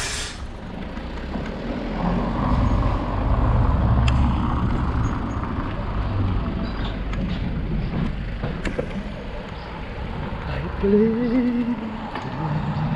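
Bicycle tyres rolling over brick paving, with a low rumble and wind on the microphone and a few sharp clicks. A short tone that rises and falls comes near the end.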